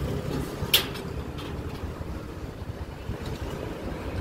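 Steady background street noise with passing traffic, and one sharp clink about three-quarters of a second in as the spoon knocks the ceramic dessert bowl.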